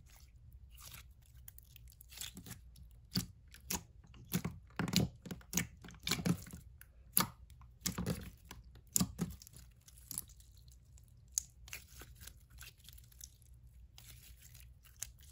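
Blue Elmer's store-bought slime being squeezed, poked and stretched by hand, giving irregular sticky clicks and small pops, busiest in the middle and thinning out toward the end.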